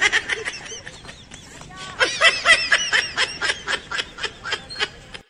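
A person laughing in a long run of quick, repeated ha-ha pulses. The laugh grows stronger about two seconds in and keeps going until it cuts off abruptly.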